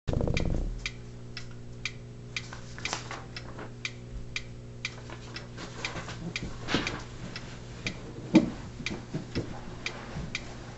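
Steady mechanical ticking, about two ticks a second, over a low steady hum; a short louder noise at the very start and a single louder knock about eight seconds in.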